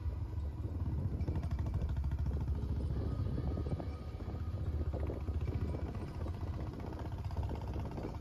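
Motorcycle running at road speed, heard from the pillion seat, with heavy wind buffeting on the microphone as a steady rough low rumble.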